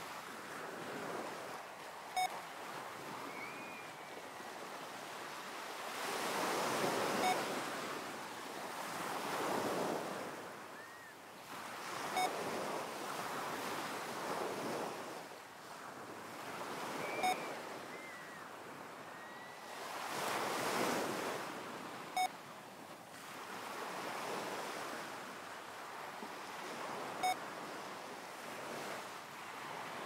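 Recorded ocean waves washing in slow swells, with a short electronic beep every five seconds marking each switch between breathing in and breathing out, paced at six breaths a minute.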